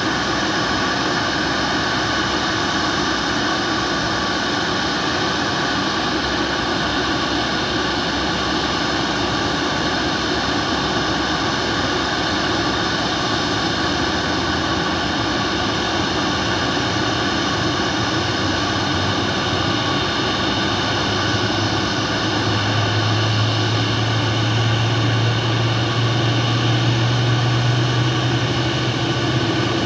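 Boeing 737 MAX 8 jet whine, a steady sound made of several high tones. About twenty seconds in, a deep steady drone joins and grows louder, and the overall sound rises a little.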